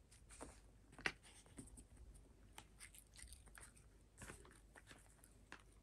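A cat chewing a treat: faint, irregular little crunches and clicks, the sharpest about a second in.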